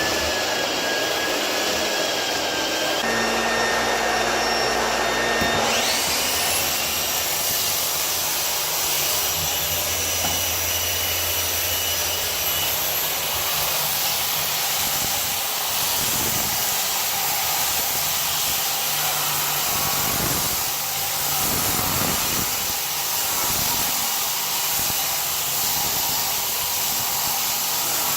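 A motor-driven machine running steadily with a whirring, whining noise. Its sound shifts higher about six seconds in and then holds.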